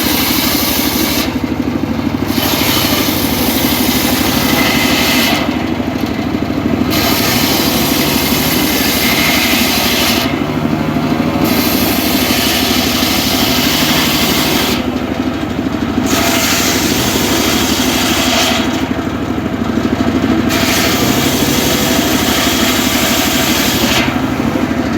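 A homemade circular saw running and cutting mahogany, over a steady low machine drone. The blade's high hiss drops away briefly about every four to five seconds, as one cut ends and the next begins.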